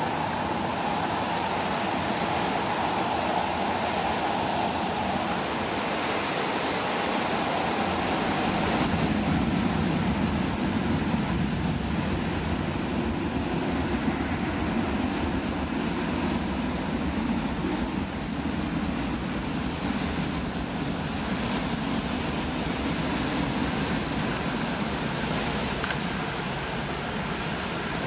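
CFM56 jet engines of a Boeing 737-800 freighter running up for takeoff, a steady jet rumble that swells about eight seconds in as the aircraft rolls down the runway, with wind noise on the microphone.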